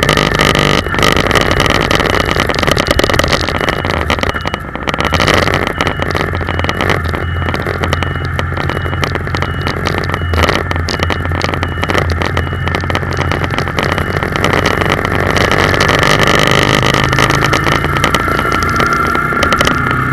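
Car driving, its engine running steadily under road and tyre noise, heard from inside the cabin.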